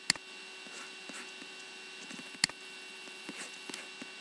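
Steady electrical hum with a few sharp computer mouse clicks: one right at the start and another about two and a half seconds in, with a few fainter taps near the end.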